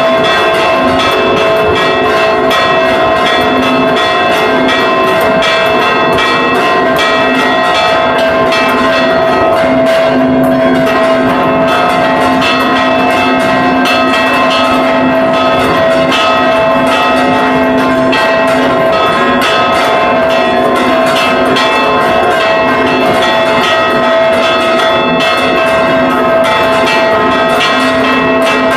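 Several large church bells rung close up in the tower in a fast, festive repique, their clappers pulled on hand ropes; loud, continuous strikes with the tones of the different bells ringing over one another.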